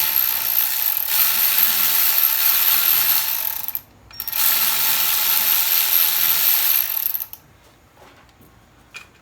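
Ratchet wrench spinning out a 12mm bolt, a fast continuous ratcheting in two runs with a brief pause about four seconds in, stopping a little after seven seconds.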